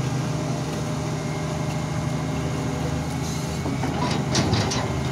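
Hitachi Zaxis 350 tracked excavator's diesel engine running steadily with a low hum, with a few short sharp clicks near the end.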